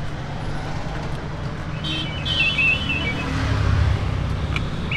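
Steady low rumble of street traffic, swelling about three and a half seconds in, with a short high-pitched sound near two seconds in.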